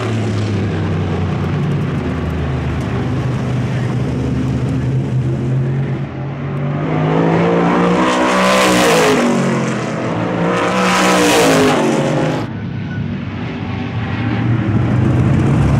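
Supermodified race cars' V8 engines: one runs steadily for about six seconds, then cars go by at speed twice, each pass loud with its pitch rising and then dropping away, and another comes up near the end.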